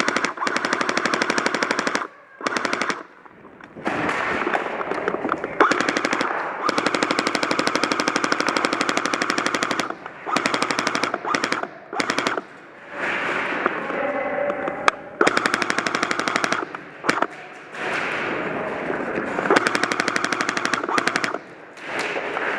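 Airsoft guns firing on full auto in long, rapid strings of shots, stopping and starting several times with short pauses between bursts.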